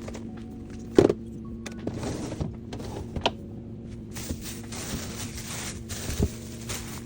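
Containers and items being set down on fridge shelves: a few sharp knocks and clunks, the loudest about a second in, over soft background music.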